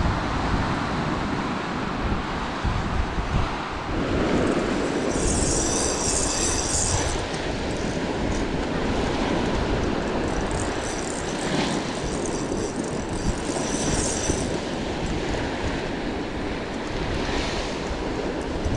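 Wind buffeting the microphone with a steady low rumble over the wash of surf breaking on the beach. A faint high-pitched whir comes twice, briefly a few seconds in and again for several seconds midway.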